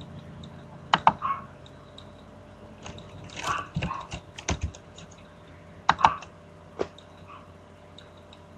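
Scattered light clicks and taps, a few in quick clusters with one duller thump in the middle, over a faint steady hum.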